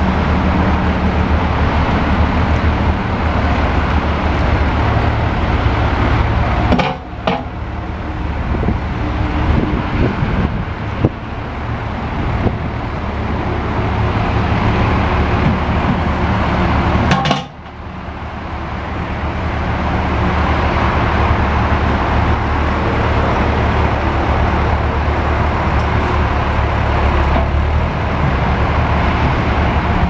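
Wacker Neuson 8003 excavator's diesel engine running steadily under hydraulic work as the arm and bucket move. The hum drops off sharply twice, about a quarter and just over halfway through, with a single click in between.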